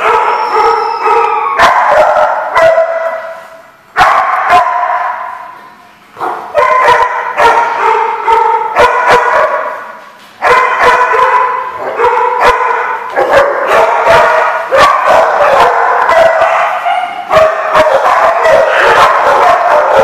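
Dogs barking and yipping over and over during rough play, each bark ringing on in a hard-walled room.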